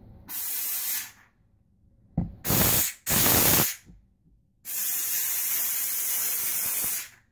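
McCulloch MC1375 steam cleaner's nozzle blasting steam in four bursts: a short one, two quick ones close together a few seconds in, then a longer one of about two and a half seconds. The steam comes out wet, spitting a lot of water droplets.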